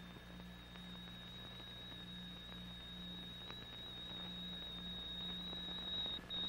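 Faint, steady, high-pitched single tone from the tone generator exciting the vibrating liquid into a static cymatic figure, over a low mains hum; the tone drops out for a moment near the end.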